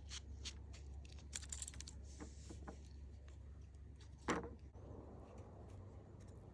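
Faint small clicks and a brief scrape as a rubber wiper blade refill is slid along the metal guides of a wiper frame, with one louder click about four seconds in.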